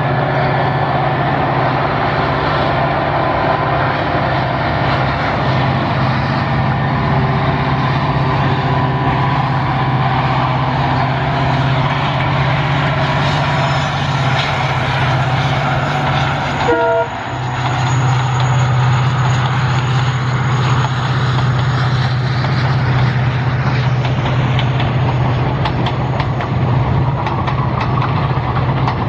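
Diesel locomotive engine running hard as it hauls a passenger train past, a loud steady low drone with rail and train noise over it. The sound drops briefly about two-thirds of the way through, then resumes.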